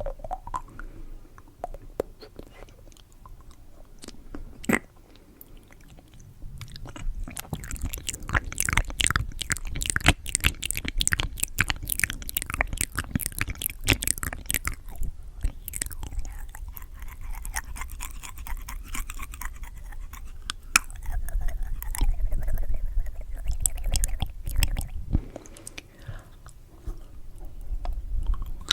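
Close-miked chewing of candy: wet mouth clicks and smacks, sparse at first, then dense and rapid from about a quarter of the way in.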